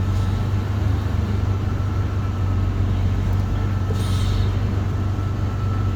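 Vehicle engine idling steadily, with a short hiss about four seconds in; with the engine running, the new vacuum brake booster makes no clunk as the brake pedal is worked.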